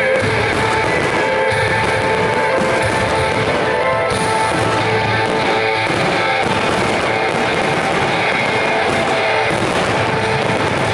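Music mixed with the continuous bangs and crackle of a dense fireworks finale.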